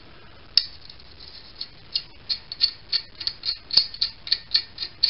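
Light, sharp metallic clicks and ticks as a small brass fitting is turned by hand into a model steam engine's copper boiler, irregular at first, then coming about three or four a second, with one louder click a little before the end.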